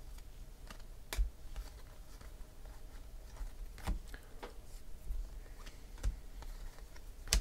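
Baseball cards being flipped through by hand: irregular soft clicks and snaps as cards are slid off a stack, a few louder than the rest.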